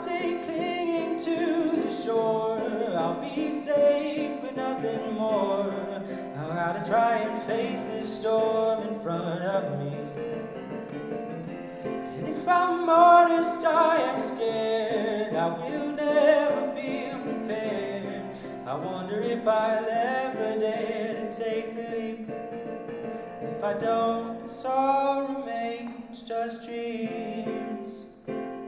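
A young man singing, accompanying himself on a Casio digital keyboard.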